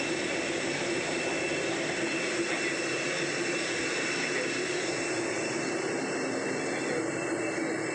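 Steady mechanical drone with a thin, high, constant whine over it, at an even level throughout with no separate knocks or impacts.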